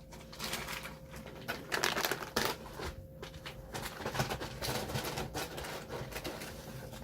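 Packaging being handled at the table: irregular crackling and clicking, busiest about two seconds in and again around four to five seconds.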